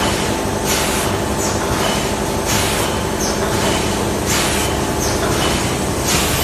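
Automatic vertical packaging machine running with a steady mechanical hum. A sharp hiss of air comes about every two seconds, four times in all, each followed by a shorter, fainter hiss as the pneumatic sealing jaws cycle.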